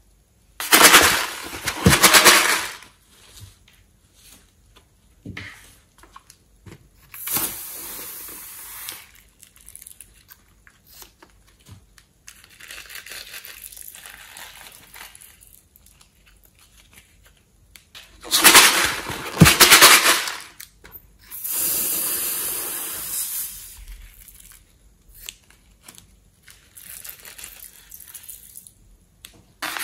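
Squeezing sounds from a latex balloon and a plastic piping bag emptied over a glass bowl of slime glue. They come as several noisy bursts of crinkling and squirting a second or two long, with fainter rustling and small ticks between them.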